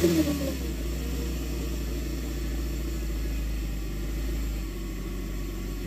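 Kawasaki Ultra 310 jet ski's supercharged four-cylinder engine just fired up and idling steadily. It is a little louder in the first second as it catches, then settles into an even low hum.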